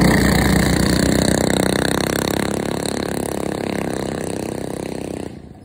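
Small single-cylinder minibike engines running steadily, fading gradually, then cutting off abruptly near the end.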